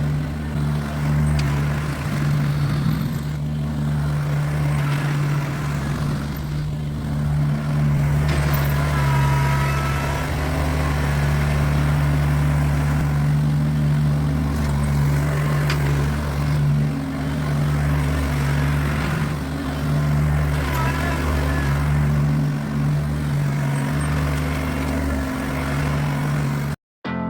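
Kubota BX23S tractor's small three-cylinder diesel engine running steadily under work, with faint squeals now and then. The sound cuts off abruptly just before the end.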